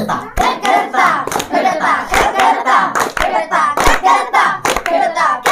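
A group of boys chanting drum syllables (mukher bajna, mouth-drumming) in unison, keeping time with steady hand claps at about two a second.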